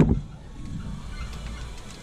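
A loud knock at the very start, followed by about two seconds of low, uneven rumbling noise, typical of work on the flywheel bolts.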